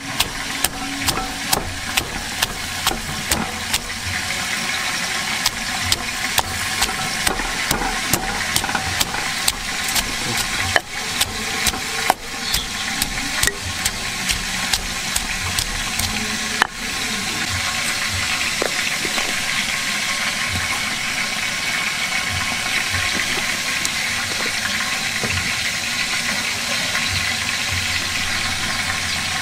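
Stone pestle pounding garlic and red chillies in a stone mortar, sharp knocks about twice a second. About seventeen seconds in the knocks stop and a steady noise carries on.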